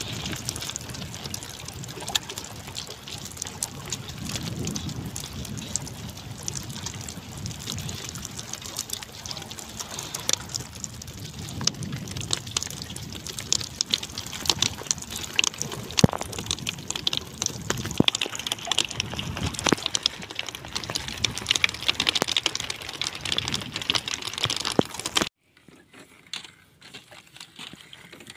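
Choppy sea water splashing and lapping against a small wooden boat's hull, with scattered sharp clicks. The sound drops abruptly to a much quieter background about three seconds before the end.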